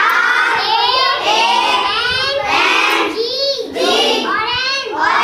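A young girl singing solo in a high child's voice, in phrases of held, gliding notes.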